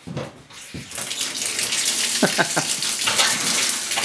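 Faucet turned on over a galvanized metal sink: about a second in the water starts, then runs steadily as a stream into the metal basin.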